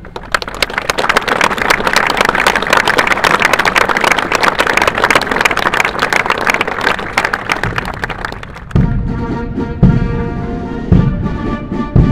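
Military band music: a loud, dense drum roll from massed snare drums. About three-quarters of the way in it gives way to sustained brass chords over heavy bass-drum beats, about one a second.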